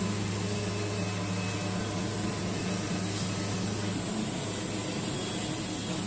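Wood-Mizer LT70 band sawmill sawing a pine log: the steady run of the mill's motor and band blade cutting through the wood, with a low hum that drops away about four seconds in.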